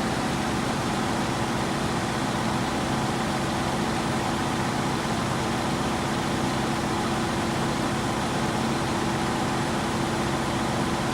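Diesel engine of a Scania truck-mounted Junjin concrete pump running steadily, a constant hum with no change in pitch or level.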